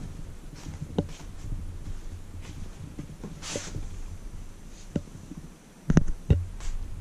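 Close-up handling noise at a floor-level GoPro as a cat moves right up to it: a low rumble with scattered knocks, a short breathy hiss about three and a half seconds in, and two loud thumps about six seconds in.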